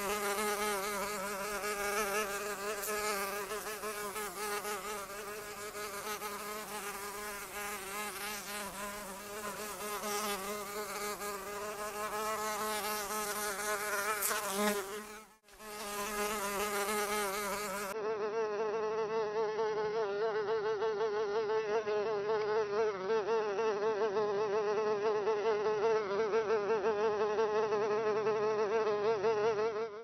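Fly buzzing, a steady wavering drone with many overtones. It drops out for a moment about halfway through, then resumes.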